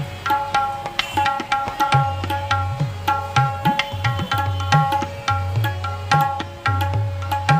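Tabla playing in a steady rhythm. The tuned right-hand drum rings on its pitch with quick strokes, and the left-hand bass drum booms with pitch glides that rise.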